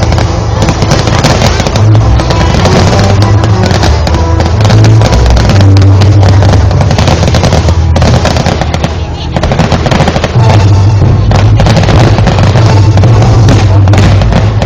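Fireworks bursting and crackling in rapid, dense bangs over loud music with a heavy bass. The bangs ease briefly about two-thirds of the way through.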